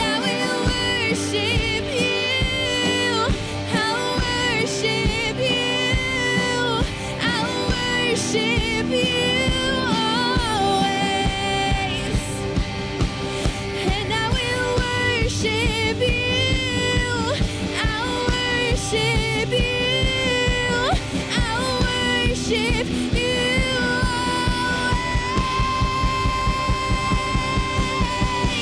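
Worship song with a band: a sung melody over guitar and drums, with a steady beat.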